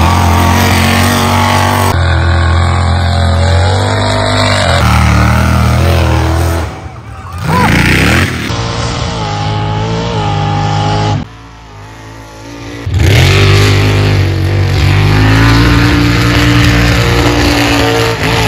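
Mega truck's big engine revving hard at full throttle, its pitch rising and falling as it accelerates. The sound cuts abruptly several times as one short recording gives way to the next.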